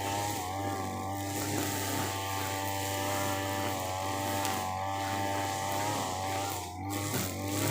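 TB43 two-stroke brush cutter with a trimmer head running at full throttle, its engine note wavering slightly under the load of thick grass. The note dips briefly near the end.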